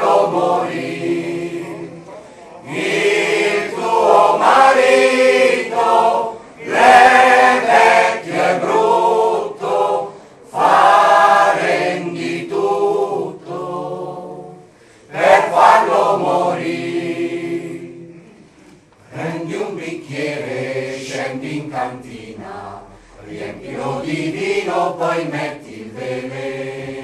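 Mixed choir of men's and women's voices singing a folk song unaccompanied, in phrases a few seconds long with short breaks between them. The singing turns softer about two-thirds of the way through.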